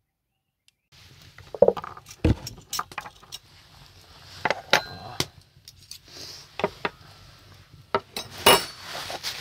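Dishes and cutlery clinking and knocking as a meal is set out, in irregular sharp clinks, a few of them ringing briefly. It starts about a second in.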